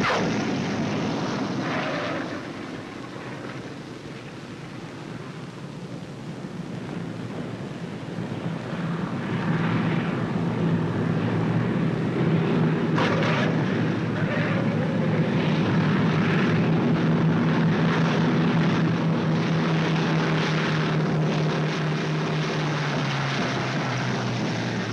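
Twin piston engines of a B-25 Mitchell bomber droning as it comes in to land. The drone fades a couple of seconds in, then swells and holds steady for most of the rest.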